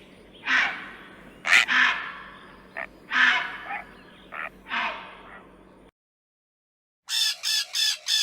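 Harsh animal calls, four of them about a second apart, then after a short silence a quick run of five calls at about four a second.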